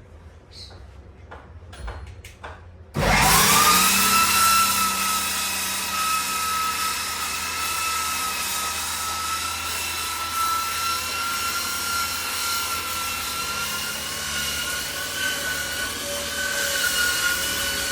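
An electric sander for deck boards is switched on about three seconds in, spins up quickly and runs steadily with a high whine. Before it starts there are a few light clicks.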